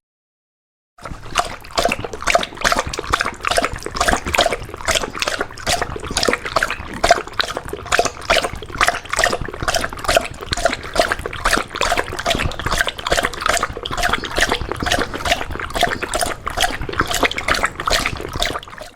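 A dog lapping water from a bowl with its tongue, a quick steady run of wet laps at roughly three a second. It starts about a second in and stops abruptly near the end.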